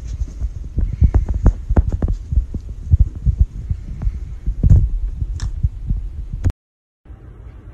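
Rapid, irregular dull thumps and knocks, loud and close, which cut off abruptly about six and a half seconds in, followed by a brief silence and then a quieter low hum.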